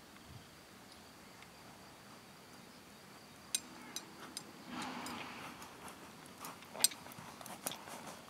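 Ridden horse coming closer across a sand arena. It is faint at first, then from about three and a half seconds in irregular hoof strikes and the clink of tack grow louder and more frequent, with a short rushing noise near the middle.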